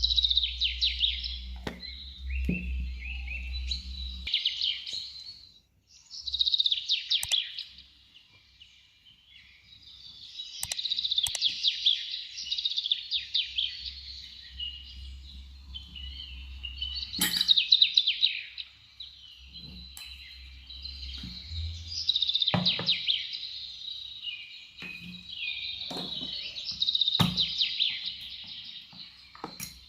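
A songbird singing rapid trilled phrases every few seconds, with a few sharp clicks in between.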